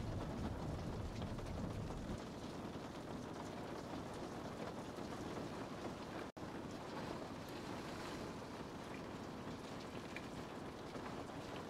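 Steady rain ambience, an even hiss of falling rain with a low rumble under it that eases off about two seconds in. The sound cuts out completely for an instant about six seconds in.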